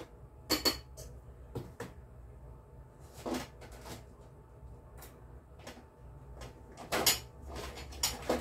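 Scattered short clicks, knocks and rustles of hands working at a kitchen counter, packing raw chicken breasts into plastic freezer bags, with a cluster of louder knocks about seven seconds in. A low steady hum runs underneath.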